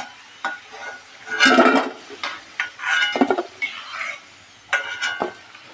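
Steel perforated skimmer scraping and clinking against a steel kadai while fried potato wedges are scooped out of the oil: several irregular metallic clatters, some briefly ringing, the loudest about a second and a half in.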